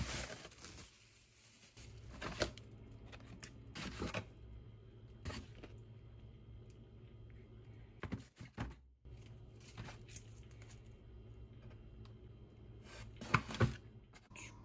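Plastic bags and food packaging rustling and crinkling in short spells as packages are handled inside a styrofoam box, the loudest near the end, over a faint steady low hum.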